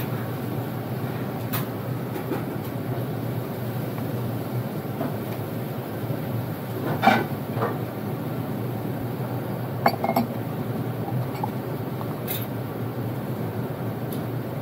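Tableware clinking at a restaurant table, chopsticks and dishes knocking a few times, the loudest clink about seven seconds in and a pair about ten seconds in, over a steady low room hum.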